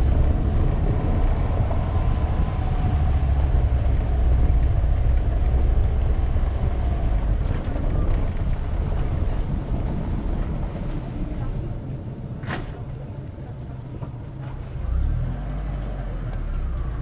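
Car driving slowly over a cobblestone road: a steady low rumble of tyres on the cobbles, with one sharp click about twelve seconds in.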